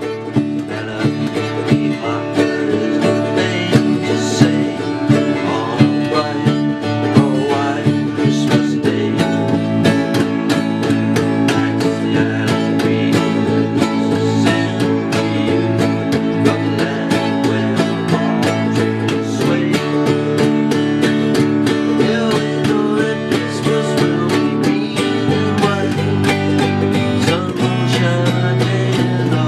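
Country-style instrumental music on plucked string instruments, with quick picked notes over held bass notes.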